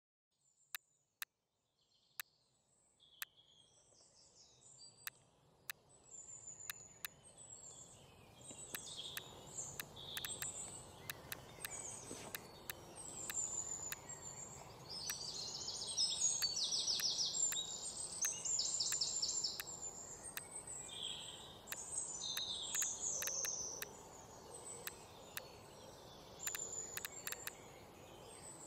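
Outdoor birdsong ambience, with several birds chirping and trilling over a soft background hiss. It fades in over the first several seconds and grows busiest about halfway through. Sharp mouse clicks recur throughout.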